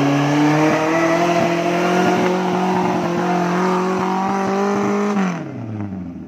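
Modified Suzuki Jimny 4x4 engine held at high revs under load as it climbs a steep dirt bank, pitch creeping slowly upward. The engine drops back off the throttle about five seconds in, with a few knocks just before.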